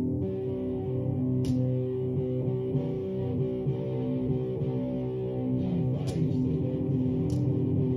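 Guitar-led music with long held notes, played through a wooden three-way floor-standing loudspeaker and heard in the room.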